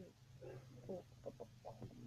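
Faint short sounds from a pet dog, several in quick succession, over a low steady hum.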